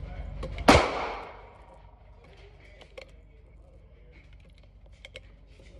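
A single gunshot cracks about a second in and echoes briefly around the indoor range. Afterwards come a few faint clicks of brass cartridges being handled and pressed into a magazine.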